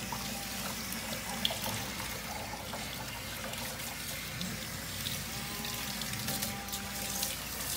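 Kitchen sink pull-down sprayer running steadily, rinsing soap from a wet dog's belly, with the water splashing off the fur into a stainless steel sink.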